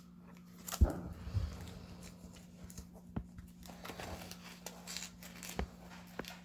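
Trading cards and binder pages being handled: soft rustling and shuffling with scattered light taps and knocks, the sharpest about a second in and again near the end, over a steady low electrical hum.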